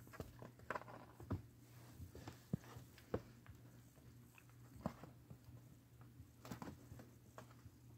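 Faint, irregular taps and scuffs of kittens playing in a cardboard box: small paws on the cardboard and toys being batted and chewed, with a few sharper taps scattered through. A low steady hum runs underneath.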